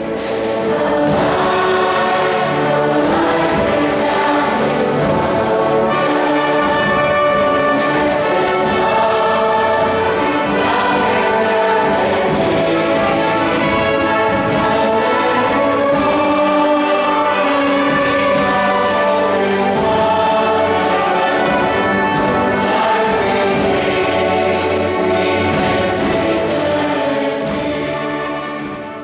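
Large massed choir singing with instrumental accompaniment, many voices holding sustained notes together; the sound fades out near the end.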